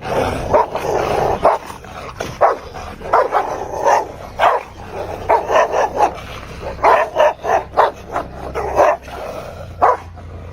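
A dog barking over and over in short, sharp barks, about one or two a second.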